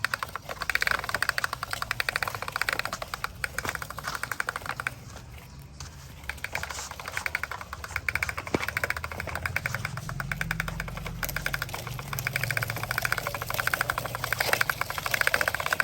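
Small electric motor of a toy construction vehicle running with a rapid clicking rattle. It drops off briefly about five seconds in, then picks up again.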